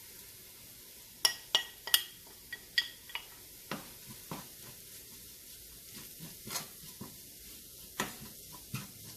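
A metal utensil clinks and taps against a frying pan several times, some taps ringing, in the first few seconds, then scrapes in irregular stirring strokes through spice powder in hot oil. A faint, steady sizzle of frying runs underneath.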